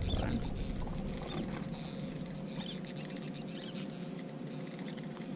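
Soft squeaks and light scratching of monofilament fishing line and a topwater lure being handled in the fingers while a loop knot is tied, over a steady faint hum.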